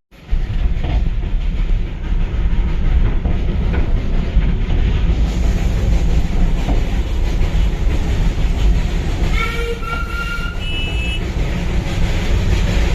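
Darjeeling Himalayan Railway toy train running, a loud steady rumble of the coaches on the narrow-gauge track. About ten seconds in the locomotive's horn gives two short toots.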